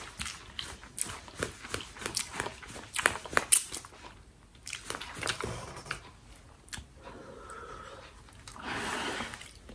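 Close-up mouth sounds of a person slurping and chewing spicy instant noodles: many quick wet clicks and smacks, then a breathy blow of air near the end.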